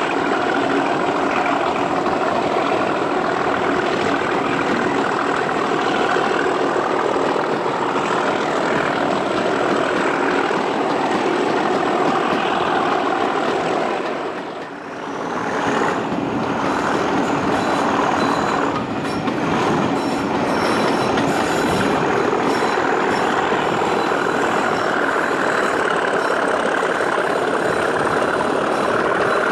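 Class 37 diesel locomotive's English Electric V12 engine running hard under power, heard from an open carriage window a few coaches behind, mixed with wheel and rail noise. The sound drops away briefly about halfway through, then picks up again.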